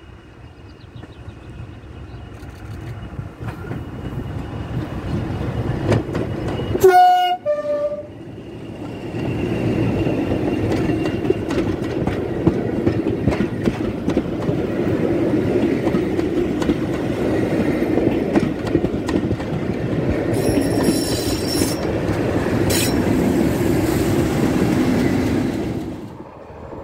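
Heritage diesel locomotive approaching, its sound growing louder, then a brief two-note horn blast about seven seconds in. The train then runs close past, a steady loud rumble of carriages with clickety-clack from the wheels, until it drops away near the end.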